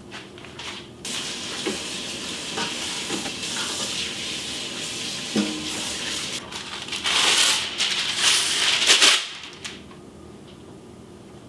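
Kitchen faucet running into a stainless steel sink, the water splashing as hands work under the stream. It gets louder for a couple of seconds near the end, then shuts off.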